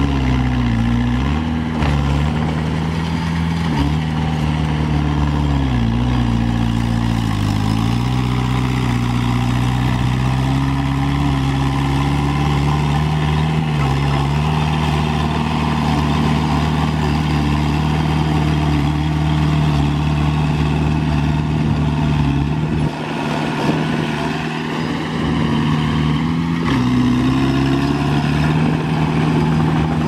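Small crawler bulldozer's diesel engine running while the dozer works soil. Its engine note dips and climbs back several times, around 1–2 s, 6–8 s, 13–14 s and 27 s, as the load on it changes.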